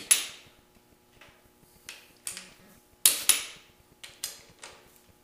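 Torque wrench clicking as the cylinder-head bolts of a Ford 400 V8 are rechecked to their final torque: about eight sharp metallic clicks at uneven spacing, some in quick pairs.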